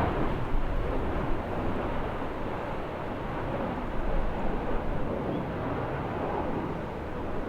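Jet airliner engine noise, a steady broad rumble with no distinct whine, swelling slightly now and then.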